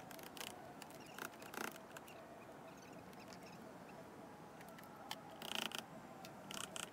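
Faint, scattered scrapes and clicks of hand work on a window frame, a few in the first two seconds and a louder cluster about five and a half seconds in.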